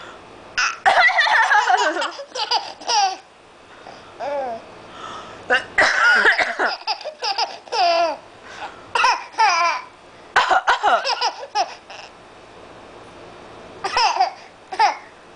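A seven-month-old baby laughing in about four bouts, each set off by a cough just before it.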